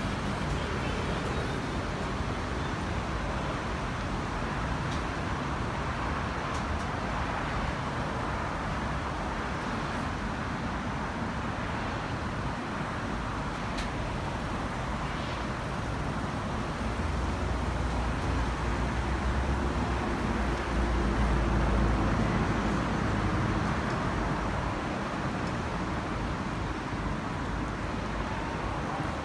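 City street traffic noise: a steady wash of road sound, with a louder low rumble that swells and fades past the middle.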